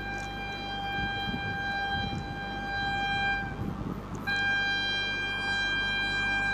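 Vande Bharat Express sounding its horn at speed: one steady note held, a short break about three and a half seconds in, then a second long blast, over the low rumble of the train running on the track.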